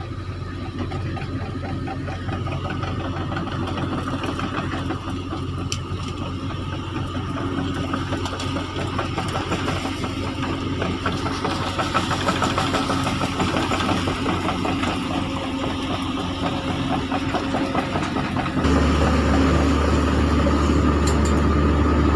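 Diesel engines of hydraulic excavators running under load while pushing over trees in land clearing. There is a steady low engine hum that becomes markedly louder and stronger about three-quarters of the way through, with a few short knocks.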